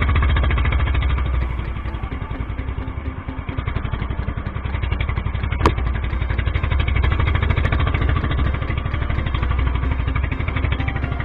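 Small engine of a motorized outrigger boat running steadily under way, with a rapid even firing rhythm. A single sharp knock comes about halfway through.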